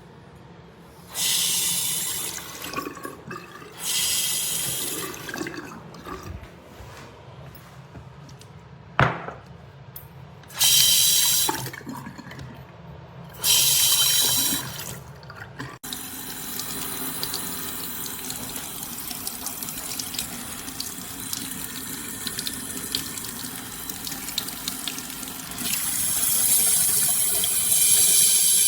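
Bathroom sink faucet with a waterfall spout running into the basin: four short spurts of water as it is turned on and off, a sharp knock about nine seconds in, then a steady stream from about halfway through that grows louder near the end.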